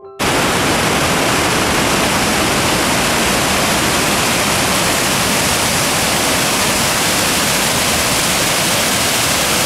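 Loud, steady rushing roar of a raging mountain torrent, whitewater pouring with no letup. It cuts in abruptly right at the start.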